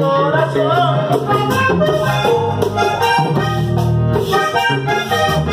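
Diatonic button accordion playing a lively vallenato melody live, with quick shifting notes over its bass notes and a steady beat underneath.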